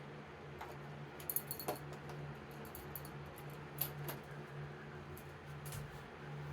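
Faint scattered clicks and light metallic clinks of small lock hardware being handled while a smart lock is fitted to a deadbolt, with a short cluster of clinks about a second and a half in, over a steady low hum.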